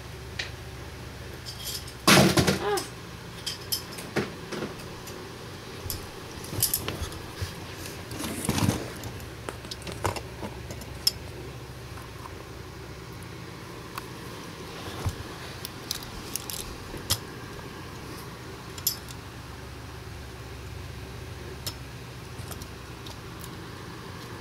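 Diecast scale models being handled by hand: scattered clicks, clinks and knocks of metal and plastic parts, loudest about two seconds in and again around eight seconds, as a model backhoe loader is set onto a model tag trailer.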